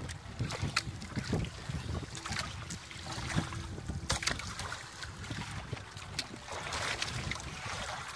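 Fishing net full of sardines being hauled by hand over the side of a boat, water splashing and dripping off the mesh, with scattered light knocks and clicks of net and fish against the hull.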